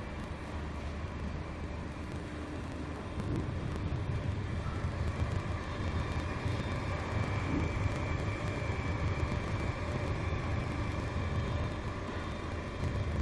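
A BGA rework station running a heating cycle: its hot-air heaters and fans blow steadily, with a light whine over a low rumble. The sound grows a little louder about four seconds in.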